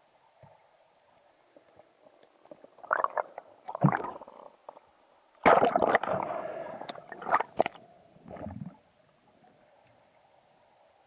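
Underwater knocks, scrapes and bubbling in several bursts as a speared fish struggles on the spear shaft and is gripped by hand, the loudest starting suddenly about halfway through, over a faint steady hum.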